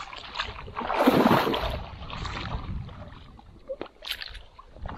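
Shallow marsh water sloshing and splashing, with reeds and grass rustling, as someone wades along the lagoon edge. The loudest splash comes about a second in, and a few sharp clicks follow near the end.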